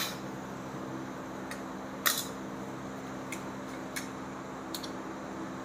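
Several light, sharp clicks and taps from hand work on small engine parts, the loudest about two seconds in, over a steady low hum.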